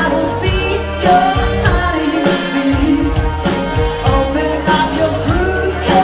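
A band playing a song with a lead vocal over a steady drum beat and bass.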